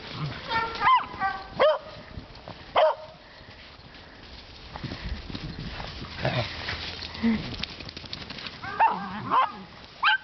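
Beagles barking in play: a few short barks in the first three seconds, then another quick run of barks near the end.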